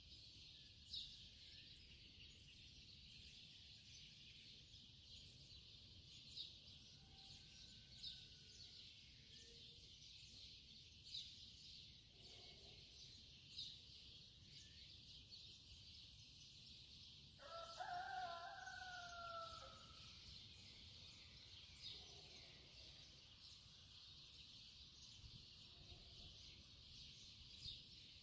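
Faint bird sounds over a steady high hiss: short chirps every few seconds, and one longer call with several pitches about eighteen seconds in.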